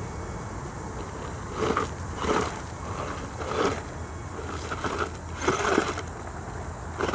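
Hosim 4x4 RC truck driving over rough dirt, its electric motor whirring in several short surges of throttle as the tyres crunch and scrabble over the ground.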